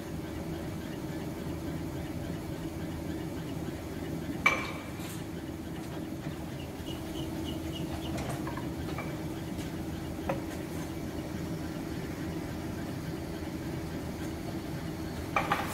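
Metal-turning lathe running with a steady hum, with a few sharp metallic clinks of tools and fittings, the loudest about four and a half seconds in.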